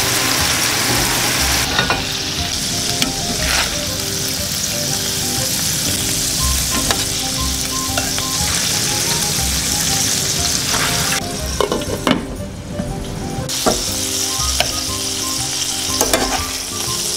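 Meatballs and bits of onion sizzling in hot oil in a stainless steel frying pan, with a few sharp clicks of metal tongs against the pan. The sizzle dips briefly about twelve seconds in, then comes back.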